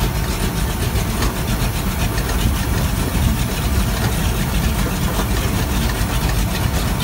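MerCruiser 496 Mag HO 8.1-litre big-block V8 inboard with chrome headers idling steadily, heard up close in the open engine compartment: a deep, even exhaust note with no revving.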